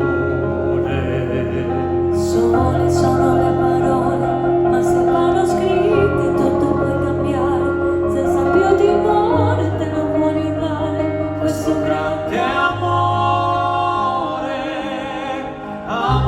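Live stage-show music: operatic singing with long held notes over orchestral backing.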